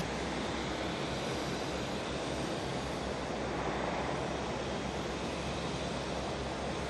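Steady rushing background noise of an airport apron, with no distinct engine tone or single event standing out.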